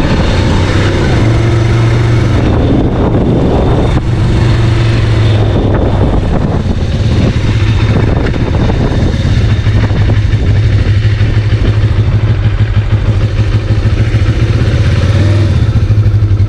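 Motorcycle engine running steadily while riding along a road, with wind rushing over the microphone. The engine note shifts in pitch in the first few seconds, and the bike comes to a stop near the end.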